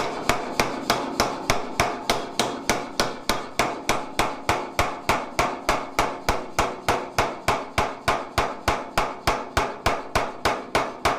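88 lb Anyang power hammer running continuously, striking a round top tool into a hot steel swage block at an even pace of about three to four blows a second, sinking a cup-shaped depression.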